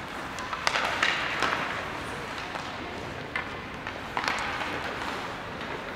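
Ice hockey play: a few sharp clacks of sticks and puck, the strongest near one second in and again just past four seconds, over a background of voices from players and spectators.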